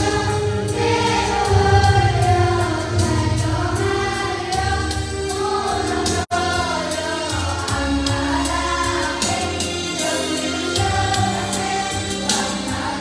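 Children's choir of girls singing a Christmas song, accompanied by an electronic keyboard holding steady low notes. The sound breaks off for a split second about six seconds in.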